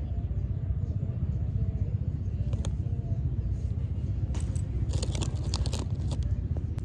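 A plastic snack bag crinkling in quick crackles from about four to six seconds in, over a steady low rumble.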